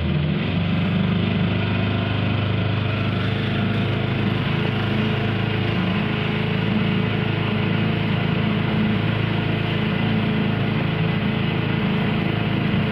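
Motorboat engine running steadily at cruising speed.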